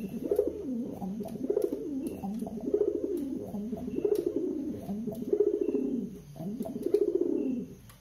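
Male domestic pigeon cooing over and over in courtship, a run of about six low, rising-and-falling coos a little over a second apart. The bird is in breeding condition and ready to pair.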